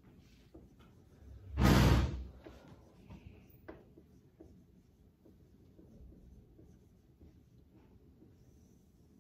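Faint squeaks and taps of a dry-erase marker writing on a whiteboard. One loud, short noise of unclear source cuts in about a second and a half in and lasts over half a second.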